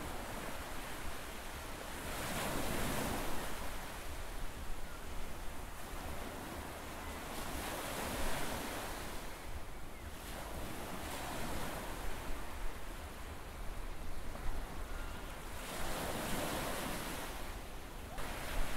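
Ocean waves washing, the rushing noise swelling and ebbing in slow surges every few seconds.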